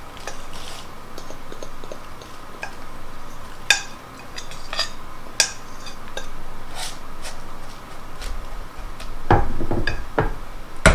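Spatula scraping and tapping against a glass mixing bowl as crumb crust mixture is scraped out into a cake pan, with several sharp clinks. Near the end comes a heavier knock as the glass bowl is set down on a cutting board.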